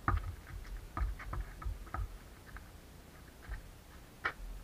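Scattered soft knocks and scuffs, a dozen or so at uneven spacing, from footsteps and a basketball on a dirt court, with one sharper knock near the end.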